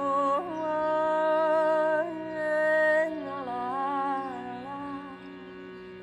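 A woman's voice holding long wordless notes over the steady reedy drone of a shrutibox. The voice steps up to a higher note about two seconds in, then moves down through several notes and fades out about five seconds in, leaving the drone alone.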